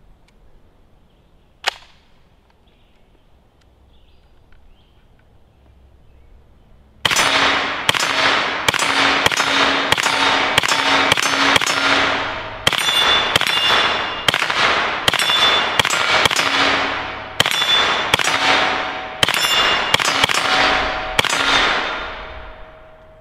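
IWI Tavor bullpup rifle with a 9mm conversion kit firing a long string of about thirty semi-automatic shots, roughly two a second, each trailing off in an echo. Before the shooting starts, a single sharp click about two seconds in.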